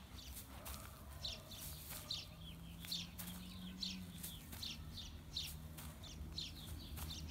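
A small songbird chirping over and over, short high downward chirps about twice a second, over a faint steady low hum.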